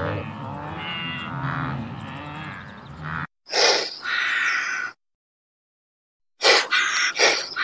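Blue wildebeest grunting and lowing in a group, cutting off abruptly about three seconds in. Then several short, breathy bursts of sound: one longer burst, a pause, and a quick run of them near the end.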